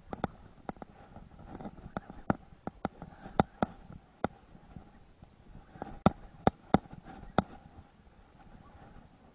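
Sharp, irregular clicks and knocks of rod-and-reel handling on a boat while a fish is being fought, over a faint steady hum. The knocks come in a run through the first four seconds, pause briefly, come again around six to seven seconds in, then die away.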